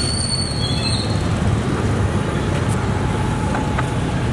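Steady low rumble of street traffic, with a thin high whine that fades out about a second in.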